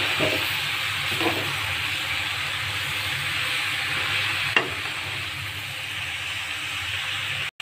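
Chicken, bitter gourd and onions sizzling in oil in a wok while being stirred with a metal spatula. A few sharp knocks of the spatula against the pan sound over the steady sizzle.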